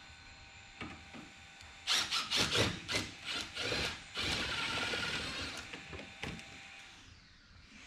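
Cordless driver backing fasteners out of a car's plastic undertray. It starts in several short bursts about two seconds in, then runs longer with a steady whine and winds down with a falling pitch near the end.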